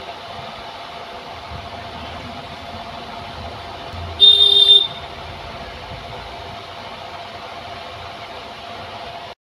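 A steady low hum with one short, loud, high-pitched beep lasting about half a second, a little over four seconds in.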